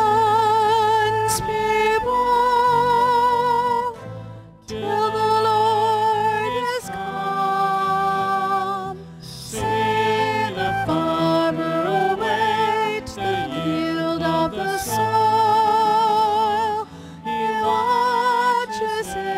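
Hymn singing: a solo voice with vibrato holding long notes in phrases of a few seconds, over a steady instrumental accompaniment.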